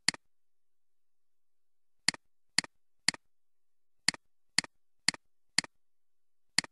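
Computer mouse button clicked nine times, each click a quick press-and-release double snap, against near silence. The clicks come in irregular groups, mostly about half a second apart.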